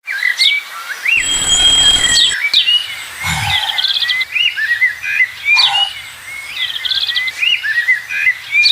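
Songbirds chirping and singing, many short calls and trills overlapping. About a second in, a brief rushing noise with a low rumble lasts about a second.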